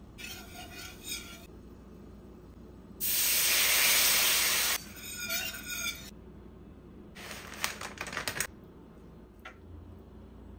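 Butter and flour sizzling in a stainless steel skillet as a roux is made, with a loud, even hiss for about two seconds a few seconds in as liquid hits the hot pan. Near the end a wire whisk stirs and clicks against the pan.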